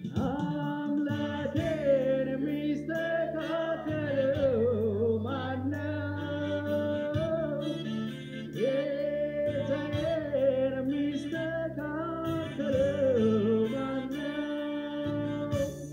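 A man singing into a microphone over an electronic Yamaha keyboard playing held chords and bass notes; the wavering vocal line pauses briefly a little before the middle and again near the end.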